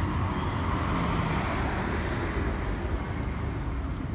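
Road traffic: a vehicle passing, its tyre and engine noise swelling over the first couple of seconds and easing off, over a steady background of traffic.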